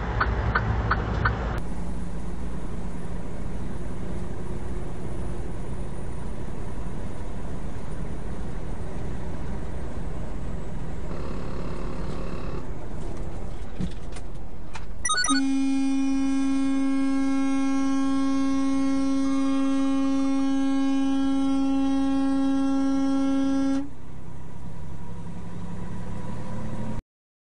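Road noise in a semi-truck cab, then a truck horn blown in one long, steady blast of about eight seconds, starting about halfway through.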